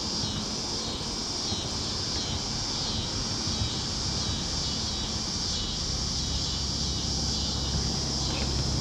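Steady chorus of insects in summer vegetation: a continuous high-pitched drone with a fine, fast pulsing, over a low background rumble.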